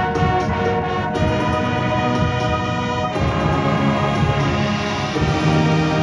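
Indoor winds ensemble playing live, brass and woodwinds holding full sustained chords that change about a second in and again about three seconds in.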